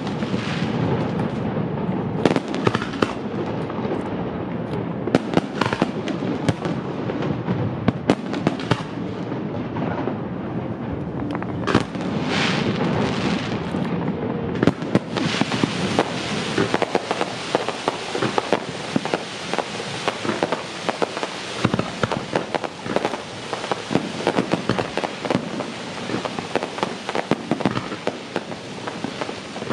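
Fireworks display: aerial shells bursting with repeated sharp bangs, then from about halfway through a dense, continuous crackling and popping of many bursts at once.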